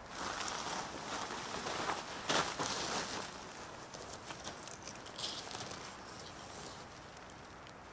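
Nylon tent fabric rustling and flapping as a tent is unrolled and its hoop pole lifted upright, with boots shifting on coarse sand. The loudest rustle comes a little past two seconds in, followed by lighter crinkling and small ticks.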